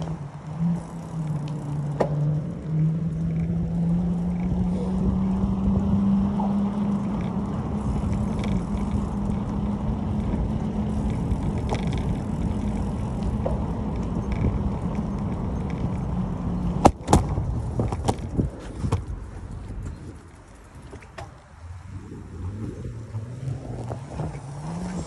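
Bicycle rolling fast on wet pavement: tyre noise and wind on the microphone, with a steady low hum that rises a little in pitch as the bike gathers speed. A few sharp clicks and knocks sound about two-thirds of the way through, and the noise drops off briefly near the end as the bike slows.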